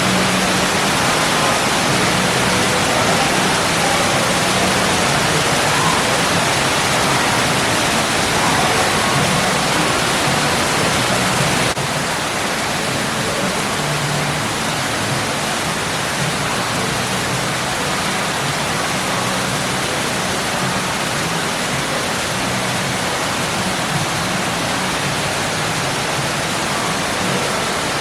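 Indoor artificial waterfall: water falling and rushing into a pool in a steady roar, a little quieter from about twelve seconds in.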